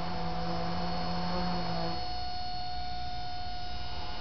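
Power canopy lift mechanism running as the canopy is raised toward its mercury-switch limit, a steady hum over a low rumble. About two seconds in its lower tone drops out and the pitch changes.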